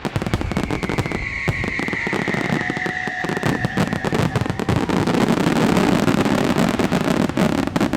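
Fireworks going off in a dense barrage of rapid bangs and crackling, with a whistle falling slightly in pitch from about one to four seconds in. The barrage grows louder in the second half.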